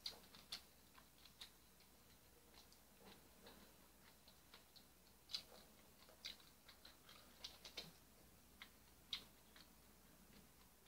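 Faint chewing with the mouth closed: irregular soft clicks and smacks, a dozen or so spread unevenly, over near-silent room tone.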